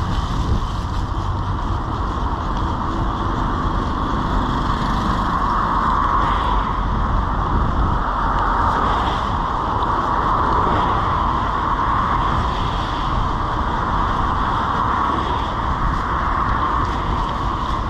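Steady rushing noise of a bicycle being ridden along a wet street in the rain, the airflow and tyre noise picked up by a handlebar-level microphone, with a low rumble underneath.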